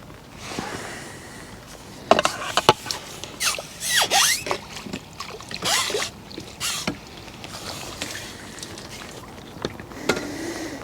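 Lake water splashing and sloshing in a few short bursts, about two, four and six seconds in, with light knocks and clicks between.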